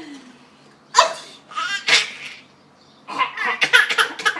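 A person sneezing about a second in, then a baby laughing in a run of quick, short bursts from about three seconds in; the sneeze is what sets the baby laughing.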